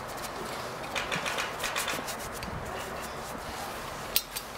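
A small brush scrubbing a metal filter element from an ASh-82T radial aircraft engine, irregular scratchy brushing strokes, with a sharp click near the end.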